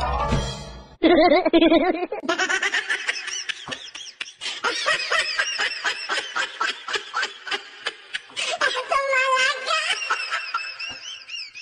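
Domestic goose calling in a long, rapid run of short, laugh-like honks, with a few longer rising honks near the end.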